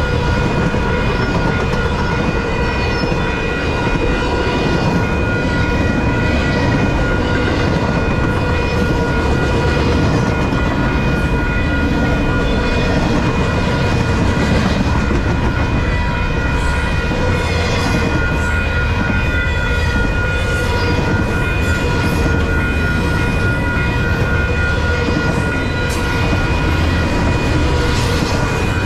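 Freight train cars rolling past: a steady rumble of steel wheels on rail, with sharp clicks from the wheels that come more often in the second half. Several steady ringing tones sound over it throughout.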